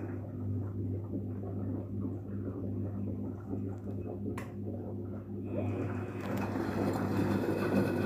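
Daewoo DWD-FT1013 washing machine running its air-bubble drum-clean cycle: water churning in the drum over a steady low machine hum, with a single sharp click about halfway through.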